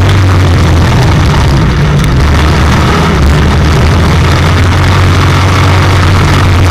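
IMCA stock car's V8 racing engine at speed, heard loud from inside the cockpit; its pitch drops for a moment about two seconds in and climbs back.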